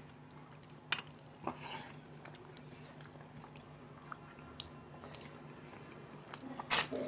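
Eating sounds close to the microphone: chewing and soft squishes as rice and fish curry are eaten by hand, with a few sharp clicks and a louder click near the end. A faint steady hum sits underneath.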